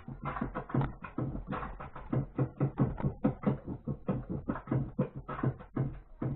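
Turntable scratching of a vinyl sample: a fast, choppy run of short cuts, several a second.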